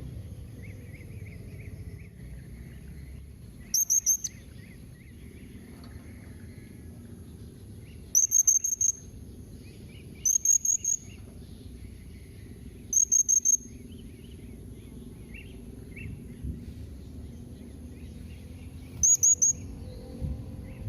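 Blue-crowned hanging parrot (serindit) calling: five short bursts of rapid, shrill, high-pitched notes a few seconds apart. A steady high insect buzz and softer twittering run underneath.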